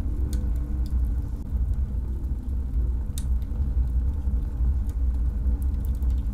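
Wood-burning stove fire burning with a steady low rumble and a few scattered soft crackles and pops.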